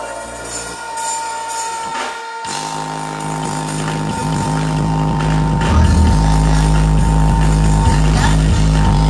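Live band music: a long held high note plays on, briefly broken by a dip about two seconds in, then bass notes come in and the music gets louder about six seconds in.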